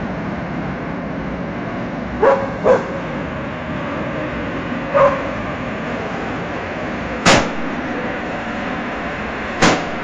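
AI-generated busy-street sound effect: steady traffic noise with a dog barking, twice in quick succession about two seconds in and once more about five seconds in. Then come two sharp gunshot bangs, about seven and nine and a half seconds in.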